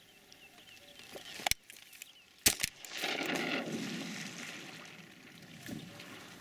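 Shotgun shots at a duck coming in over the water: one crack about one and a half seconds in, then a louder pair of cracks about a second later, followed by a couple of seconds of rushing noise that fades out. A quick series of short high chirps is heard before the shots.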